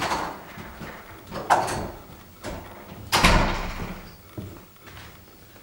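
Thumps echoing in a stairwell: one about a second and a half in, and the loudest about three seconds in.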